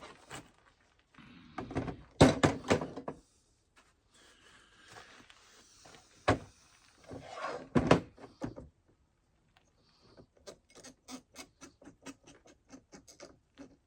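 Chainsaw bar and chain being handled on a bench: several knocks and clatters, then a quick run of light clicks, about four a second, near the end.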